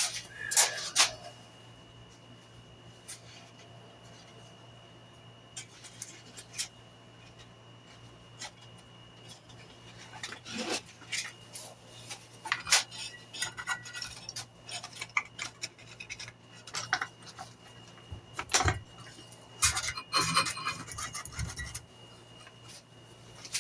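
Scattered light clinks, taps and rubbing of metal tools and small parts being handled on a workbench, growing busier about halfway through, over a faint steady hum.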